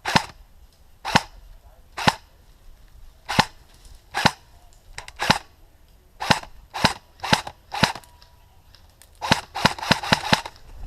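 Airsoft rifle firing close by: single shots about a second apart, then a quick string of about five shots near the end.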